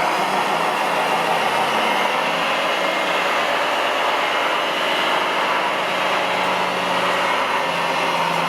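Steady whirring of the small electric motors and gearing of radio-controlled construction vehicles running, with a faint low hum that shifts slightly in pitch.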